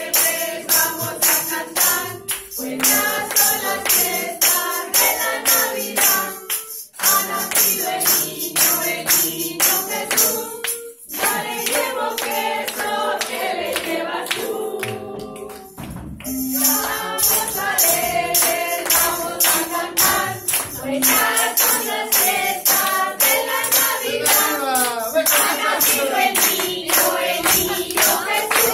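A group of adults singing a song together over a steady beat of shaken and struck tambourines.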